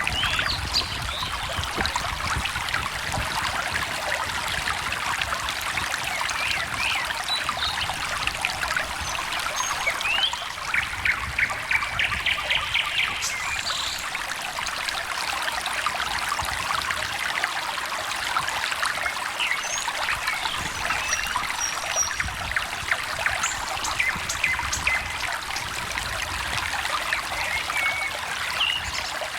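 A small stream trickling and babbling steadily, with songbirds chirping over it and a quick trill about twelve seconds in.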